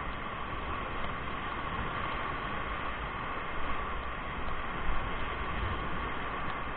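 Whitewater rapids rushing around an inflatable raft: a steady rushing noise of fast, broken water, with two brief louder moments about four and five seconds in.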